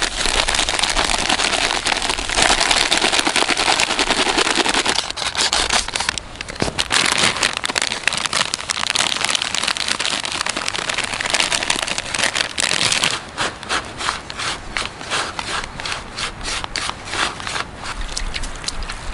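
Foil groundbait packets crinkling and dry crumbly groundbait pouring into a plastic bowl: a dense rustle for the first few seconds, then a long run of quick crackles.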